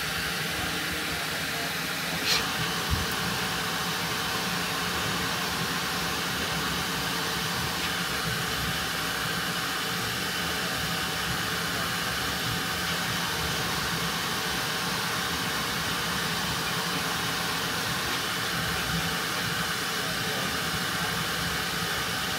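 Bambu Lab H2D 3D printer running steadily at the start of a print: an even fan noise with faint steady tones, and a few light clicks about two to three seconds in.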